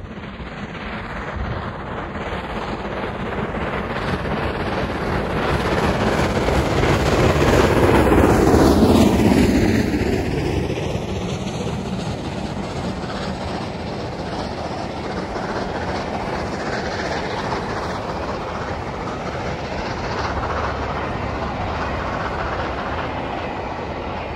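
LMS Jubilee class three-cylinder 4-6-0 steam locomotive 45562 Alberta passing with a train of coaches. The sound builds as it approaches and is loudest about eight to nine seconds in as it passes, with a falling pitch. Then the coaches' wheels rumble and clatter by.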